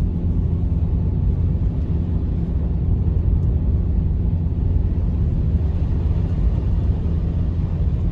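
Steady low rumble with a faint hum running through it.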